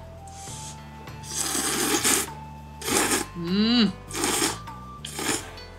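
Ramen noodles in a thick, rich tonkotsu-chicken kotteri broth being slurped in a run of about five noisy slurps, the longest about a second and a half in. Background music plays underneath, and a short pitched sound comes about halfway through.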